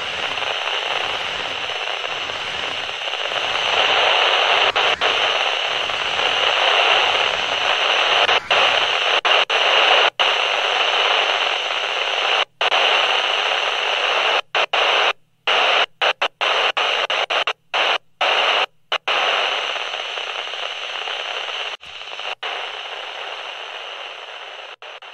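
Loud TV static hiss with a low pulse under it, repeating about every two-thirds of a second for the first nine seconds or so. From about halfway, the static cuts out again and again in brief gaps, then fades away near the end.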